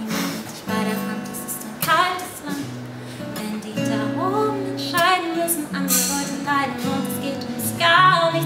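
Woman singing a slow song while strumming chords on an acoustic guitar, her sung lines coming in phrases over the steady guitar.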